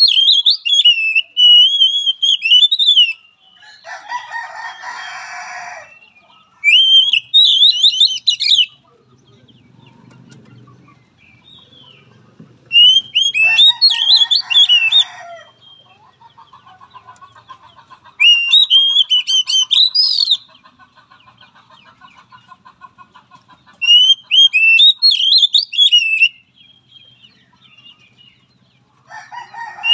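Oriental magpie-robin singing in short bursts of rich, fast-warbling high phrases, one every five or six seconds. Between the phrases a rooster crows three times, the last near the end.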